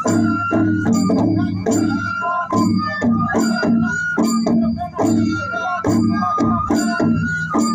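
Traditional Bodo Kherai ritual music: barrel drums beaten in a steady repeating rhythm, with a held, wavering melody line playing over them.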